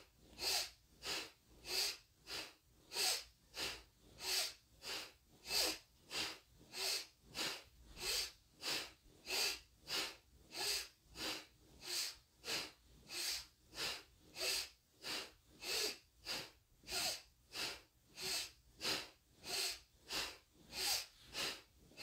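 A person breathing fast and forcefully through the nose during a kundalini yoga breathing exercise. Inhales and exhales follow each other in an even rhythm of about two to three a second, each a short, sharp rush of air.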